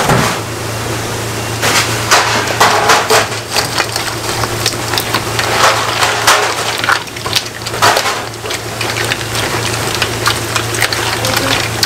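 Gloved hands tossing and squeezing noodles with spicy sauce and young radish kimchi in a stainless steel mixing bowl, making irregular wet squelching and crackling strokes over a steady low hum.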